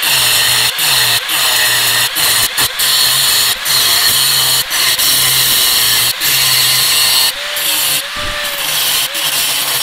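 Angle grinder with a thin cutting disc cutting notches into the steel of an old axe head: a loud, steady grinding, broken by short gaps about once a second.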